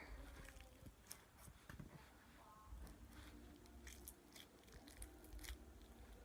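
Fluffy slime being squished and worked by hand, giving faint, irregular little crackles and clicks.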